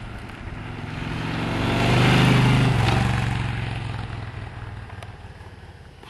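Honda VTX 1300's V-twin running at a steady speed through its stock exhaust. It grows louder to a peak about two seconds in, then fades, with no change in engine pitch.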